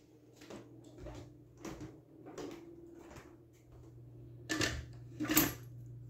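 Footsteps going up stairs at a steady pace, about one step every two-thirds of a second, with two louder knocks near the end as a metal step stool is carried along.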